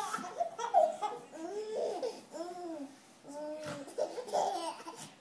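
A baby laughing in repeated short bursts of bouncing, breathy giggles with brief pauses between them.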